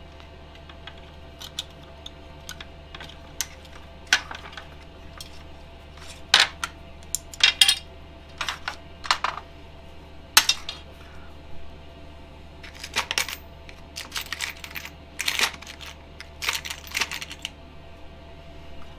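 Small metal parts and hand tools being handled while a DRO bracket is bolted to a lathe: irregular metallic clinks and taps, some in quick rattling clusters, over a steady low hum.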